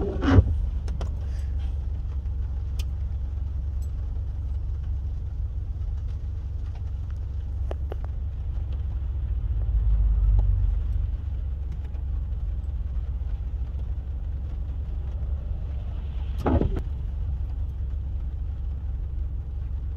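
Steady low rumble of a car running, heard from inside its cabin, swelling briefly about halfway. There are two sharp knocks right at the start and another later on.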